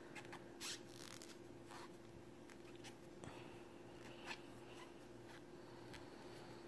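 Near silence: faint handling of yarn and a metal crochet hook, with a few soft ticks, over a steady low hum.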